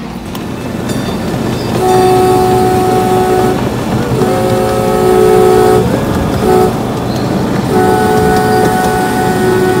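Miniature ride-on train's horn sounding four blasts, three of them long and held steady and one short, with one blast sliding up in pitch as it starts. Beneath them runs the rumble of the train moving on the track.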